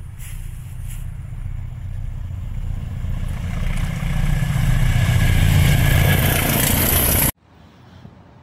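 Diesel locomotive hauling coaches as it approaches, its deep engine rumble and the rail noise growing steadily louder. The sound cuts off suddenly about seven seconds in, leaving only faint background.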